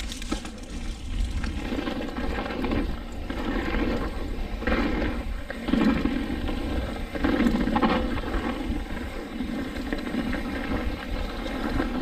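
Mountain bike riding downhill on a dirt trail: wind rumbling on the camera microphone and knobby tyres rolling over dirt, swelling and easing with the bumps of the trail.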